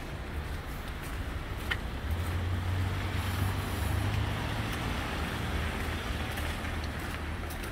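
City street traffic noise. A low rumble swells from about two seconds in and eases after about five seconds, over a steady hum of the street.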